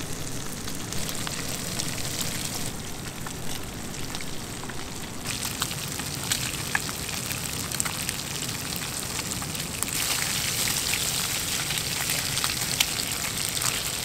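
Breaded walleye fillets frying in hot oil in a skillet: a steady sizzle with many tiny crackling pops, growing louder and brighter about ten seconds in.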